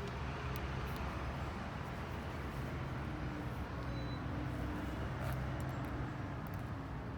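Steady low rumble of street traffic and engines, running evenly throughout.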